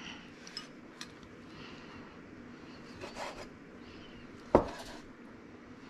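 Kitchen knife slicing ripe tomatoes on a cutting board: soft scraping and light clicks, with one sharp knock of the blade on the board about four and a half seconds in.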